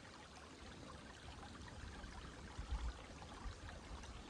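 Small creek trickling over rocks, a faint steady wash of running water. A brief low thump comes a little under three seconds in.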